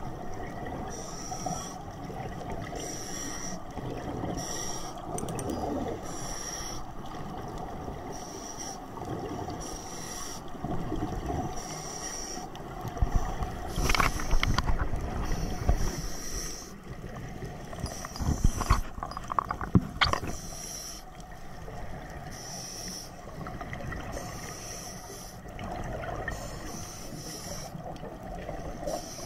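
Underwater scuba-diving sound on a camera housing: the low rumble of regulator exhaust bubbles and water moving past the housing. A faint high pulse repeats about once a second, and a cluster of sharp knocks and rattles comes about halfway through and again a few seconds later.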